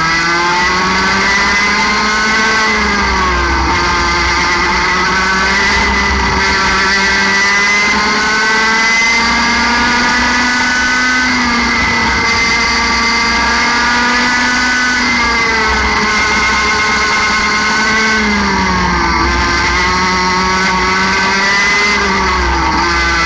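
Single-cylinder 60cc two-stroke kart engine heard on board under race conditions. It revs up to about 14,000 rpm, and its pitch drops sharply each time the driver lifts for a corner, about six times.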